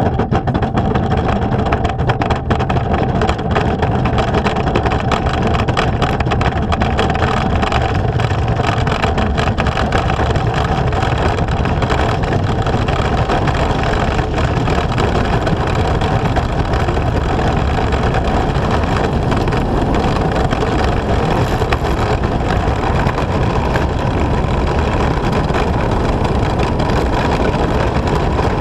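Four-man bobsled running down an ice track at speed: its steel runners on the ice make a loud, steady rumble with many small knocks and rattles through it.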